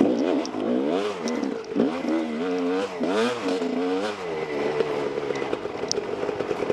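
2012 Husqvarna WR 300 single-cylinder two-stroke dirt bike engine revving up and down with the throttle several times, then settling to a steadier pitch for the last couple of seconds, heard from a helmet-mounted camera.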